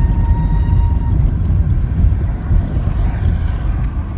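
Car driving, heard from inside the cabin: a steady low road rumble. A steady high tone fades out about a second in.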